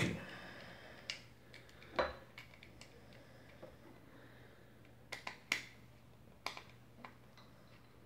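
Screwdriver clicking and scraping against the terminal screws of a ceramic lamp socket as a wire is fastened: a few scattered light clicks, with three in quick succession a little past five seconds in.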